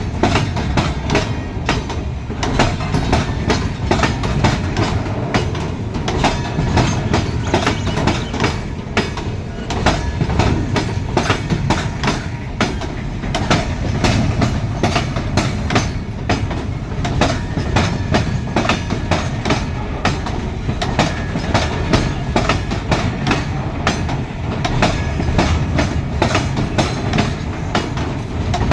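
Indian Railways goods train running on the track: its wagon wheels clatter over the rails in a dense, continuous run of clicks over a steady low rumble.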